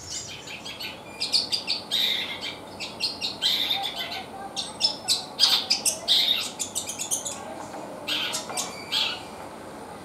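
Long-tailed shrike (cendet) singing: a rapid, irregular run of sharp, high chirps and chattering notes that starts about a second in and stops near the end. The keeper credits its busy singing to being fed kencur (aromatic ginger).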